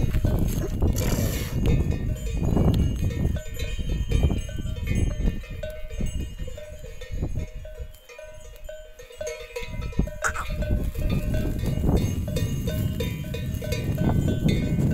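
Bells on grazing cattle ringing steadily, over a heavy low rumble of wind on the microphone that eases briefly past the middle.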